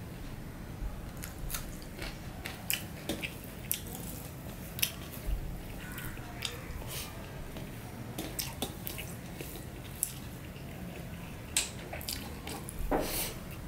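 Close-up eating sounds of a meal eaten by hand: rice being squished and mixed with the fingers on a steel plate, with scattered small clicks, and chewing. A louder, longer sound comes near the end.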